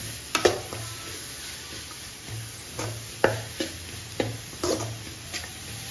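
Metal spatula stirring grated carrot in an aluminium kadai, with irregular sharp knocks and scrapes against the pan, loudest about half a second in and just past three seconds. A faint sizzle of the frying runs underneath.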